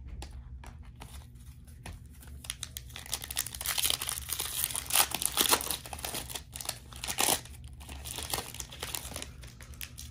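Plastic wrapper of a Panini Prizm basketball card pack torn open and crinkled in the hands: a dense crackling, loudest in the middle few seconds.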